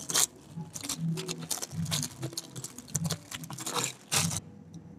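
Crinkling and rustling of a plastic instant-noodle wrapper and a foil seasoning sachet being handled: quick irregular crackles that stop about four seconds in.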